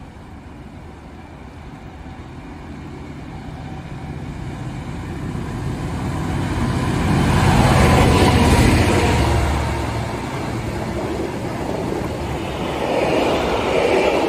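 A Class 66 diesel-electric locomotive, with its EMD two-stroke V12 engine, approaches and passes at speed, growing louder to a peak about eight seconds in. The container wagons it hauls then roll past with a steady rumble that swells again near the end.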